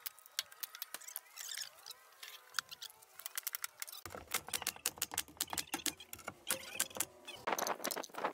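Pneumatic nail gun firing into plywood panels: a run of sharp, irregular clacks, several a second. A short burst of hiss comes near the end.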